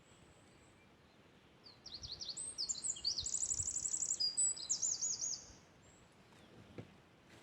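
Songbirds singing in quick, high-pitched trills and chirps that overlap. The song starts about two seconds in and runs for about four seconds, then fades back to quiet.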